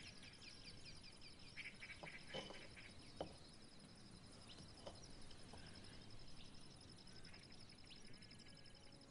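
Near silence: faint outdoor ambience of a steady high insect trill, with a few scattered faint bird chirps and light clicks.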